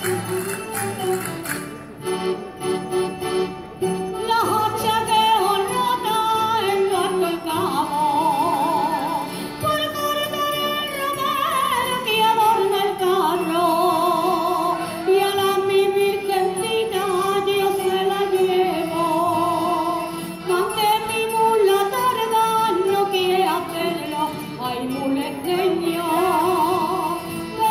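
Spanish folk dance music: a sung or played melody with a wavering vibrato over a steady accompaniment, with jingling percussion near the start.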